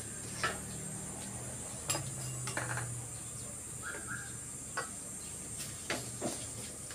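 Wooden spoon stirring tomato sauce in a stainless steel frying pan, with scattered clacks as the spoon knocks against the pan, over a steady hiss.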